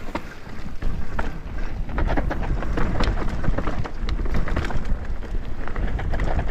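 Wind buffeting the microphone while a mountain bike rides fast down a rough trail, with frequent sharp clicks and knocks from the bike rattling over the ground. The rumble grows heavier about two seconds in.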